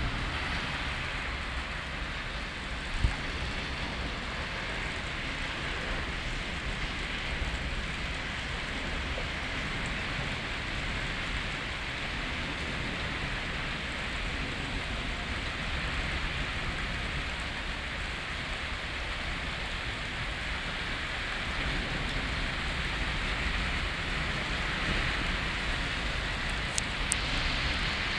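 Heavy thunderstorm rain falling steadily, an even hiss, with one sharp knock about three seconds in.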